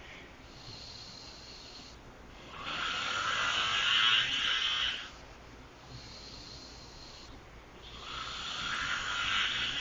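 A person snoring: two long snores about five seconds apart, each lasting two to three seconds, with quieter stretches between them.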